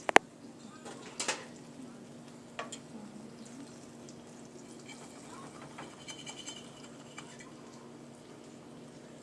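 Kitchen cooking sounds: a faint sizzle of food frying in a pan under a steady low hum, with a sharp utensil click just after the start and a few lighter knocks in the first few seconds.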